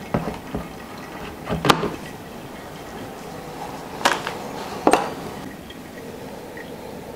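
Brewed coffee draining from a ceramic pour-over dripper into a glass server just after the last pour, with a few hard knocks and clinks of the kettle and ware being set down, the loudest just under two seconds in.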